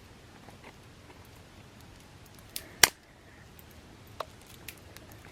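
Earbuds playing back test audio, heard as a thin, clicky sound like children's percussion: a few sparse sharp taps, the loudest a pair of clicks about three seconds in, with smaller ones near the end.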